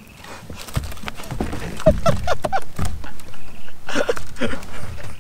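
Short non-word vocal sounds from a person, in quick runs of a few syllables, with a few low thumps in between.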